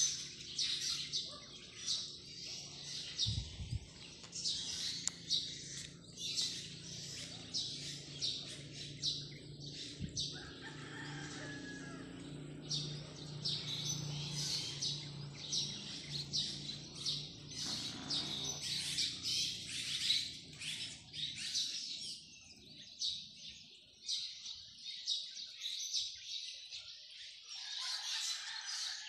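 Small birds chirping and twittering over and over, many short high calls. Under them runs a low steady hum that fades out about three quarters of the way through.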